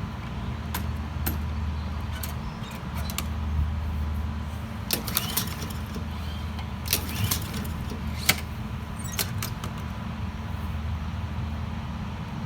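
Scattered sharp metallic clicks and clinks as tools and mower parts are handled, several loud ones about midway, over a steady low hum.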